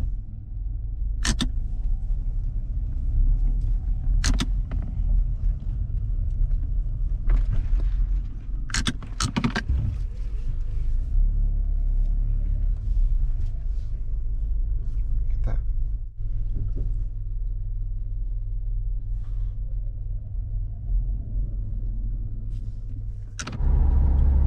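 Car driving, heard from inside the cabin: a steady low road and engine rumble, with a few short clicks or knocks from inside the car.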